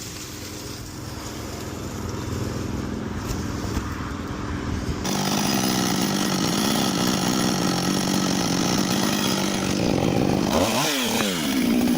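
Chainsaw engine running steadily under load as it cuts through a thick branch, growing louder about five seconds in. Near the end the engine revs up and down several times.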